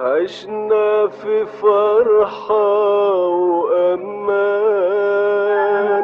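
Arabic music: a melodic line of ornamented notes that slide up and down between pitches, over a held, steady accompaniment.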